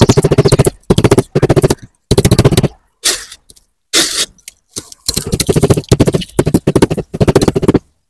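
A sand-filled plastic pipe being rapidly knocked and shaken against a tabletop to pack the sand before bending, giving a fast rattling clatter in bursts of about half a second to two seconds with short gaps between them.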